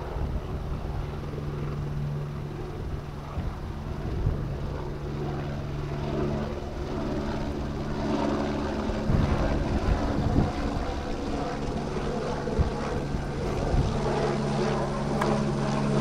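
Helicopter flying overhead with a water bucket slung on a long line: a steady rotor and engine hum, with a few short knocks and a little more body from about halfway through.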